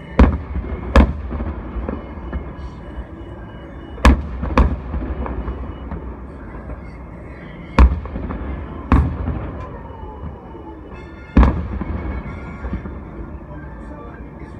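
Fireworks bursting in the distance: about seven loud booms spread irregularly, with smaller pops between them, over music playing faintly underneath.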